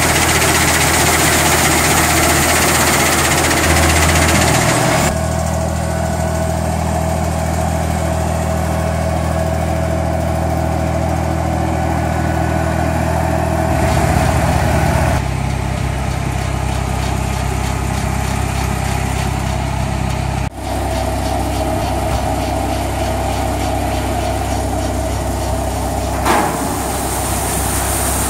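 Massey Ferguson 3660 GE tractor's engine running steadily while working a towed Volentieri-Pellenc 8050 olive harvester, with the harvester's machinery running along. A short knock near the end.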